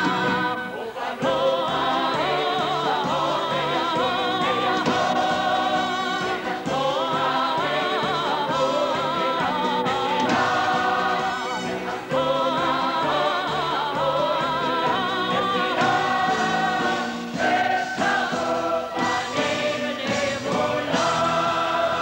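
A woman singing a song with strong vibrato into a microphone, backed by a choir and orchestra.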